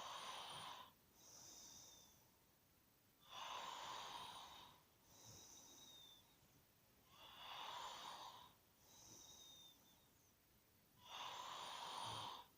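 A person snoring faintly in a slow, regular rhythm, about one breath cycle every four seconds. Each cycle is a louder, rasping snore breath followed by a softer one.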